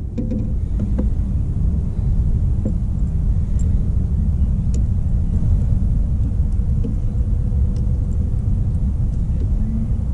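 Steady low outdoor noise, even and unbroken, with a few faint ticks.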